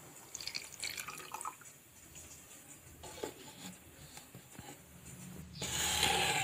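Milk poured from a cup into a steel mixer-grinder jar of cashews, a splashing trickle for about a second near the start. A click follows a couple of seconds later, and near the end comes a louder brief rushing noise.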